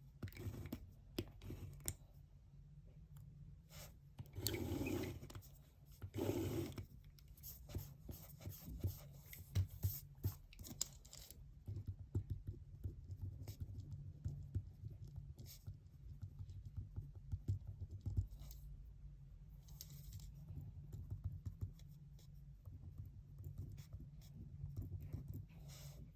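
Pen writing on paper at a desk, many small scratches and taps, with two short rustles of paper about four and a half and six and a half seconds in, over a steady low hum.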